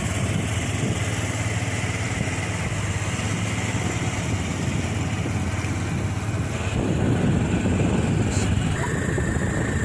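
Honda Activa scooter engine running as it rides along, a steady low hum under a rushing noise that gets somewhat louder about seven seconds in.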